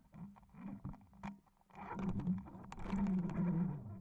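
Muffled underwater rumble and scattered knocks picked up by a camera in a waterproof housing on a fishing line, swelling louder in the second half as a hooked kahawai tugs the line.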